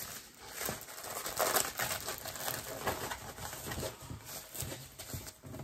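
Plastic packaging of a diamond painting kit rustling and crinkling in short, irregular crackles as it is handled.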